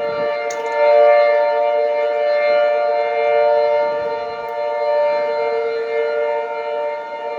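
Outdoor storm warning sirens, an American Signal T-128 and a Federal Signal 2T22, sounding a steady tone at full pitch for a siren test. The tone holds its pitch while swelling and fading a little in loudness.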